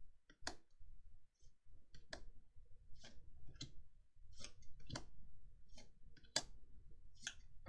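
Magic: The Gathering cards being handled and flicked through one by one: about a dozen short, sharp clicks at irregular intervals.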